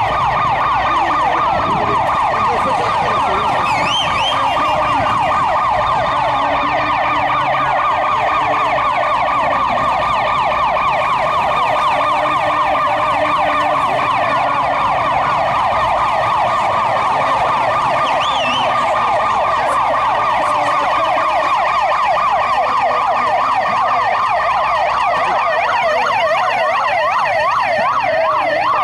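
Several emergency-vehicle sirens of an ambulance convoy sounding at once, their fast rising-and-falling sweeps overlapping into a loud, unbroken wail.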